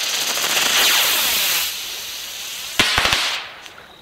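Novelty firework hissing loudly as it sprays sparks, the hiss easing off after a second or two. About three seconds in comes a sharp crack followed by a quick run of pops.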